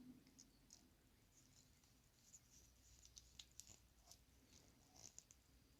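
Faint small clicks and scratches of a small screwdriver turning the screw that holds a plastic action figure's body together, tightening a taped leg joint.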